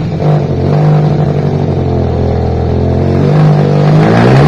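Suzuki Satria FU motorcycle with a custom 300cc two-cylinder screamer engine, dropping off a rev to a low, steady run. It is blipped up again near the end.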